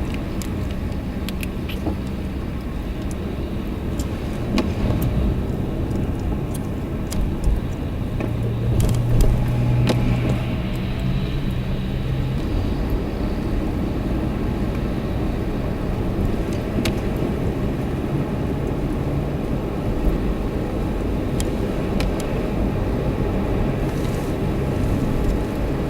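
Steady vehicle rumble of road and engine noise, with a deeper drone that swells and fades between about eight and twelve seconds in, and scattered faint clicks.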